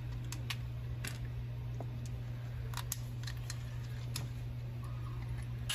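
Scattered light clicks and taps of small 3D-printed plastic blaster parts and screws being handled and fitted together by hand, over a steady low hum.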